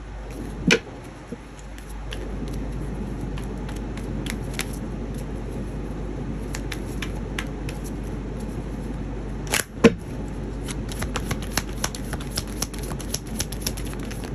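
A deck of oracle cards being shuffled by hand: a steady papery rustle with small card clicks, a sharper snap near the start and a louder one about two-thirds of the way in, and quicker clicking toward the end.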